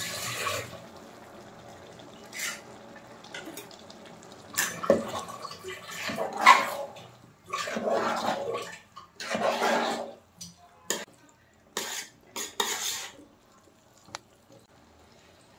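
A metal spoon stirring and scraping a wet rice mixture in a large metal cooking pot. The scrapes and clatters come irregularly and are busiest in the middle.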